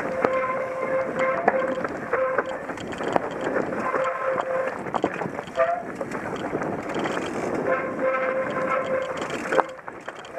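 Mountain bike rolling fast down a rocky dirt trail: a steady rattle of the bike and tyres over stones with frequent sharp clicks and knocks. A steady buzzing tone rides over it and drops out twice.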